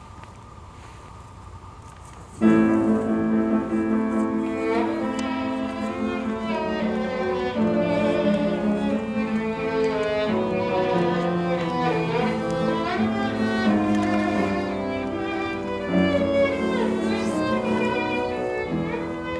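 Bassoon playing a classical concerto passage of long, connected notes. It starts suddenly about two seconds in, after a faint steady hum.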